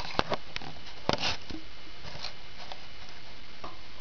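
Scattered clicks and short rustles of component cable plugs being handled and pushed into the RCA-style jacks on the back of an HD set-top box, with a slightly longer scrape about a second in.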